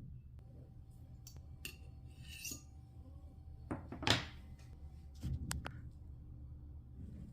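Cutlery clinking and scraping against a plate: a few light clicks, a louder scrape about four seconds in, and a couple of ringing clinks a little after five seconds.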